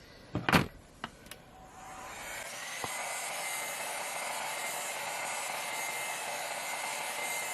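A knock about half a second in, then a heat gun switched on and running steadily, its fan and air hiss building up over a second or so and holding; it is heating the phone's edges to soften the screen adhesive.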